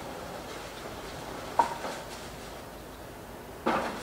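Steady background noise of a city neighbourhood heard through an open window, with two sharp knocks, one about a second and a half in and another near the end.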